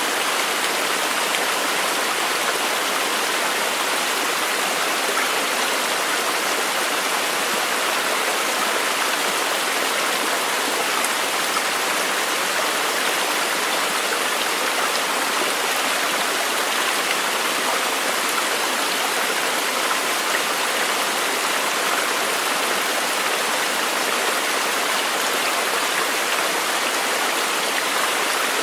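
Continuous, even rush of water, steady in level throughout with no distinct splashes or other sounds.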